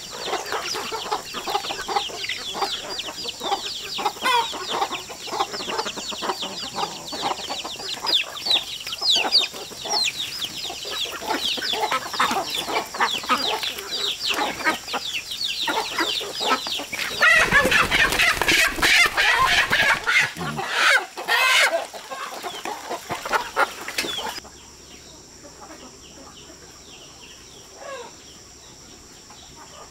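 A flock of chickens clucking busily while feeding on scattered grain, with a rooster crowing. About two-thirds of the way through there is a louder rush of noise. The sound then cuts to a quiet background with one faint bird call near the end.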